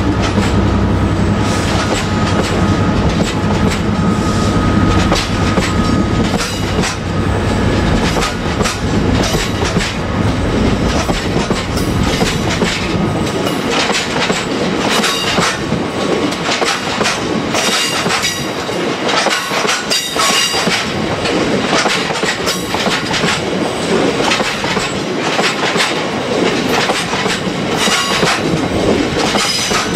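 Loaded open box wagons of a freight train rolling past, their wheels clattering over the rail joints in a steady clickety-clack. A thin steady squeal sounds in the first few seconds, and the low rumble thins out about halfway through.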